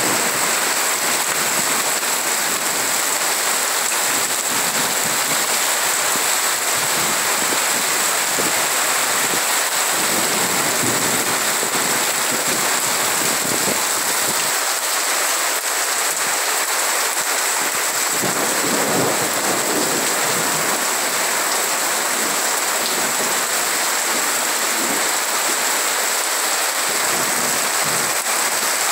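Heavy rain pouring down in a steady, dense hiss, with water streaming off a roof edge and low rumbles now and then.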